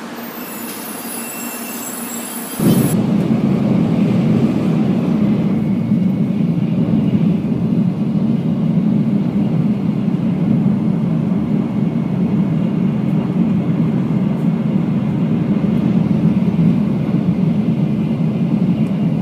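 Steady low rumble of a Shinkansen bullet train running at speed, heard inside the passenger cabin. It opens with a couple of seconds of quieter station sound carrying a high whine, then cuts suddenly to the louder cabin noise.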